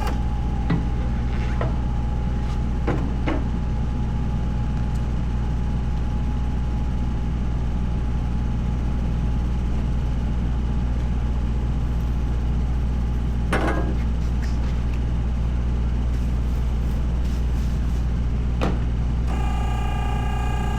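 Engine idling steadily with a low, even drone, with a few short metallic knocks of tyre-changing work over it. Near the end a steady electronic beep tone sounds.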